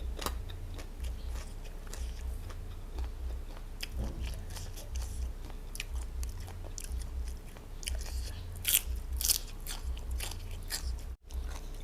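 Close-miked chewing and crunching of food, with many irregular crisp mouth clicks and two louder crunches about nine seconds in.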